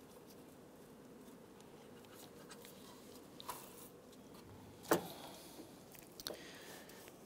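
Faint rubbing and handling sounds as a serpentine belt is fed by gloved hands over the engine's pulleys, with scattered small clicks and one sharp knock about five seconds in.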